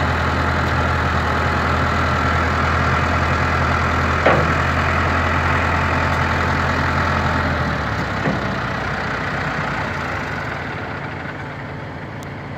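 Case IH 885 tractor's diesel engine idling steadily, with a single sharp knock about four seconds in. Near eight seconds the deep engine note drops away and the sound grows quieter.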